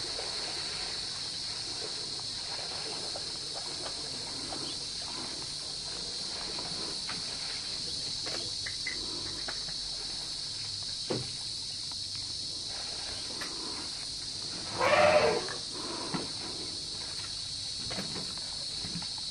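A single short call from an elephant, under a second long and pitched with several overtones, about fifteen seconds in, over a steady high drone of insects and a few faint knocks.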